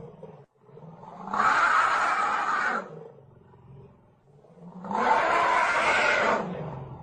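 Horror monster roar sound effect: two long, harsh roars about a second and a half each, with a low growl between them.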